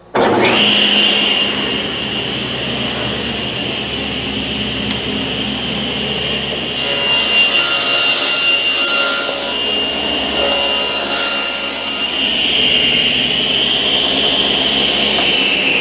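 Table saw switched on and running with a steady whine, then ripping a sheet of half-inch lauan plywood lengthwise, the blade cutting from about seven to twelve seconds in with a brief break partway; near the end it is switched off and its whine falls as the blade spins down.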